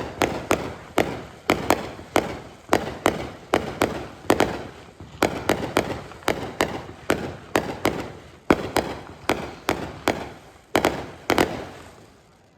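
Fireworks going off in a rapid series of sharp bangs, about two to three a second, each trailing off; the barrage thins out and dies away near the end.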